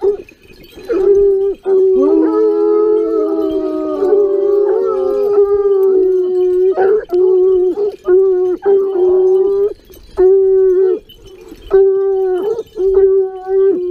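A pack of Gascon Saintongeois hounds baying on the wild boar's line: long, drawn-out bays, several hounds giving tongue together from about two to five seconds in, then single bays roughly once a second.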